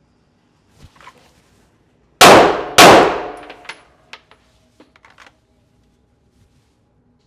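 Two Glock pistol shots about half a second apart, loud and ringing off in the reverberant indoor range, followed by several faint metallic clinks.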